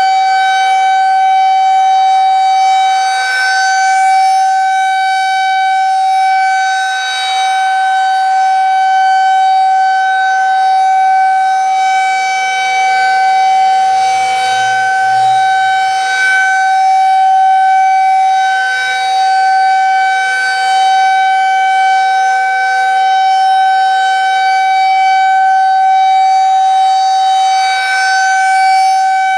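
Federal Signal 2001-SRN rotating outdoor warning siren sounding a steady single tone at full speed during a test, its loudness swelling and fading slightly every few seconds as the horn rotates.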